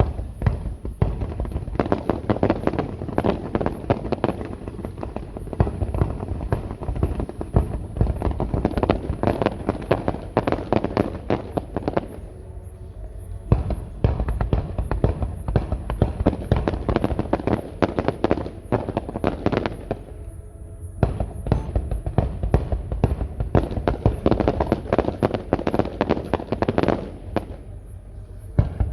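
Fireworks display: rapid, dense volleys of bangs and crackling bursts, with two brief lulls, about twelve and twenty seconds in.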